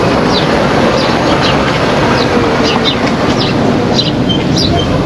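Small birds chirping over and over, in short falling chirps, over a loud, steady rush of background noise.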